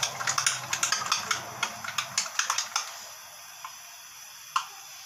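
Metal spoon beating raw egg in a small bowl: fast, light clicking taps of the spoon against the bowl, several a second, which stop about halfway through, with one more tap near the end.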